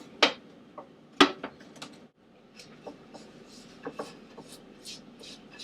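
Hard objects being handled on a work surface: two sharp knocks about a quarter second and a second and a quarter in, then a run of lighter clicks and taps.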